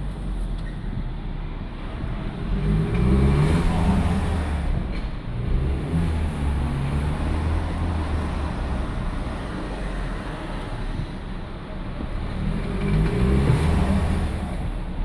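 Volkswagen Golf 7 Variant's 1.4 TSI petrol engine and DQ200 seven-speed dual-clutch gearbox, pulling through the low gears twice, about three seconds in and again near the end. This is the gearbox the owner reports slipping and squeaking on the 1-2 and 2-3 shifts.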